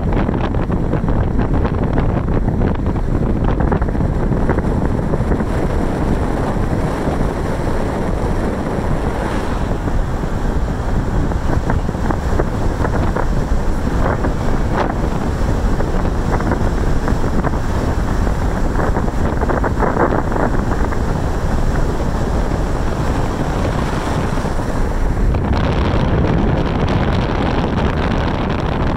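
Wind rushing over the microphone of a camera in a moving vehicle: a steady, loud rumble of wind noise.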